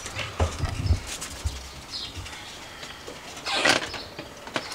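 Footsteps and handling bumps from walking with a handheld camera, then a front door being opened: a short rustling scrape about three and a half seconds in and a sharp click near the end.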